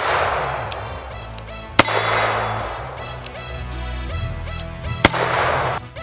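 Ruger SP101 snub-nosed revolver fired twice, about two and five seconds in, each shot followed by a fading echo. Background music with a steady bass line plays throughout.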